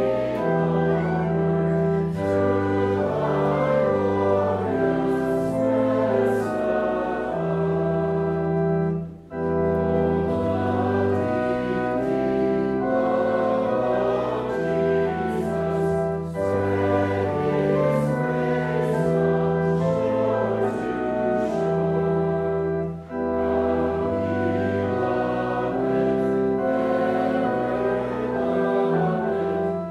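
Congregation singing a hymn with keyboard accompaniment in held chords. The music breaks off briefly between lines about nine seconds in and again about 23 seconds in.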